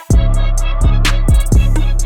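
Hip hop background music with a heavy bass line and a steady drum beat, kicking in at full loudness right at the start.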